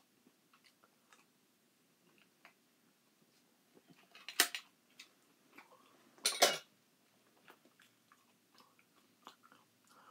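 Eating crushed pineapple from a tin can: faint scattered clicks of a plastic spoon against the metal can and chewing, with two much louder short scraping noises about four and six seconds in.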